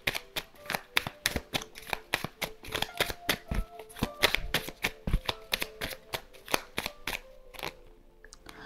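A deck of oracle cards being shuffled by hand: a quick, irregular run of soft card slaps and flicks that stops near the end.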